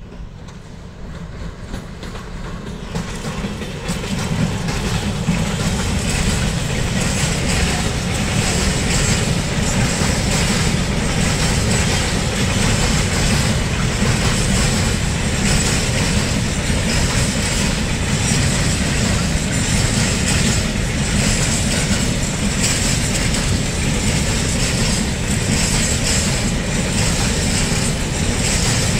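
Freight train rolling past: a low rumble with wagon wheels clacking over the rail joints, growing louder over the first four seconds as it comes up, then holding steady. A thin high wheel squeal runs over it.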